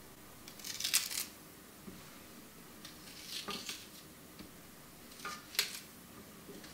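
Small kitchen knife cutting fresh ginger root, with short scrapes and clicks against a glass cutting board, in three brief clusters: about a second in, midway, and near the end.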